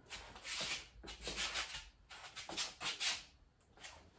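Clothing fabric rustling and rubbing in a series of short swishes.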